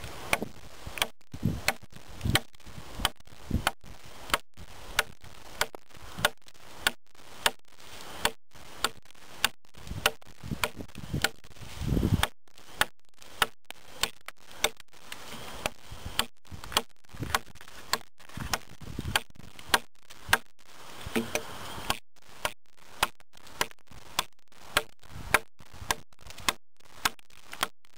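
A Blind Horse Knives Pathfinder 1 knife chopping into an oak stick on a log: repeated sharp blows of the blade into the wood, roughly two a second, with a brief break near the middle.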